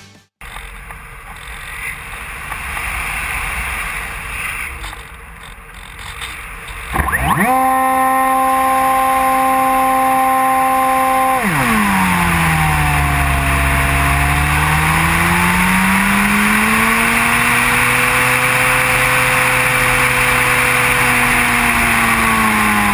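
Bixler RC plane's electric motor and pusher propeller, heard from on board with wind rushing past. After a few seconds of quieter wind hiss, the motor whine rises about a third of the way in and holds a steady pitch. About halfway it drops sharply, then swings slowly up and down in pitch as throttle and airspeed change.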